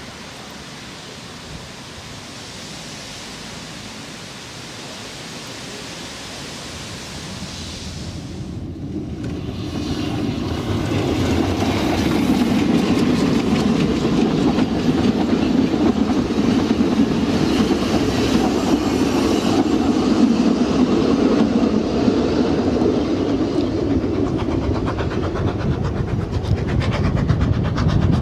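Narrow-gauge goods train of wagons and a brake van passing close by, growing louder about ten seconds in and then running steadily; before that only a quieter steady background noise.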